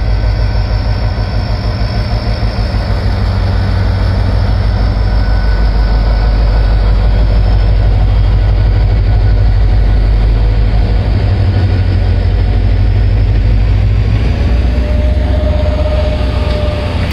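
Diesel-electric locomotive engine of a Pakistan Railways HGMU-30 running steadily close by, a deep pulsing rumble. About fourteen seconds in the rumble shifts lower and a faint whine comes in briefly.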